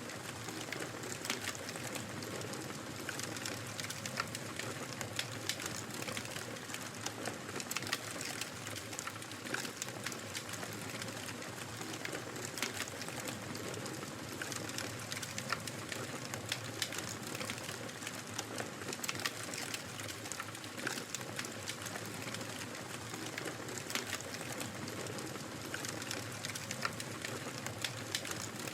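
Wood fire crackling: a steady hiss with frequent small, sharp pops and snaps scattered irregularly throughout.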